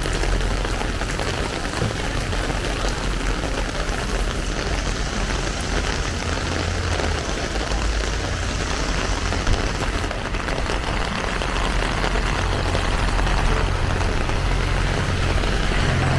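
Heavy rain pouring down onto a city street, a dense, steady hiss, with a steady low rumble underneath that grows a little louder in the second half.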